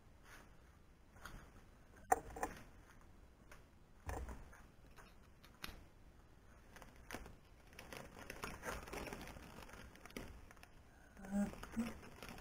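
Scattered clicks, knocks and rustles of hand tools and parts being handled on an aluminium-extrusion CNC frame, the sharpest knock about two seconds in. A low voice starts near the end.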